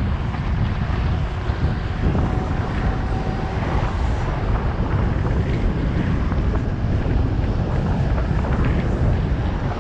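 Wind buffeting the microphone of a bicycle-mounted action camera while riding, over the engines of a queue of cars and trucks alongside.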